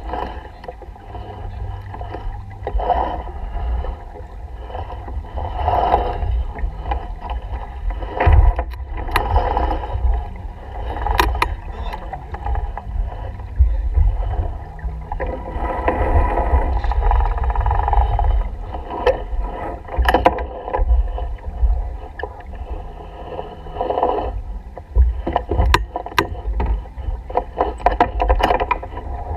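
Wind buffeting the microphone and water rushing along the hull of a sailboat under way, swelling every few seconds as the boat moves through the chop, with scattered sharp clicks from the deck gear.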